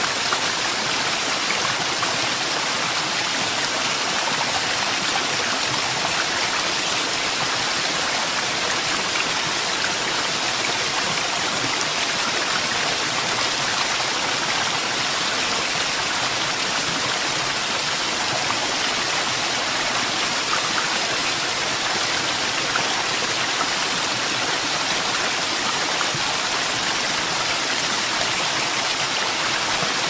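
Tall mountain waterfall dropping off a cliff onto rocks, a steady, even rush of falling water.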